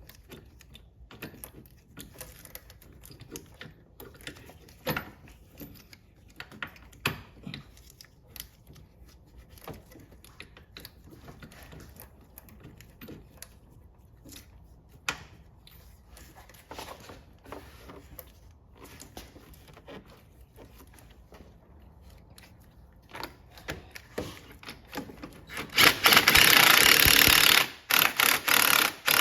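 Light scattered metallic clicks and clinks of tools and bolts while the mount's 18mm bolts are run in, then, near the end, a power tool runs loudly for about a second and a half, followed by a few short bursts, driving the bolts home.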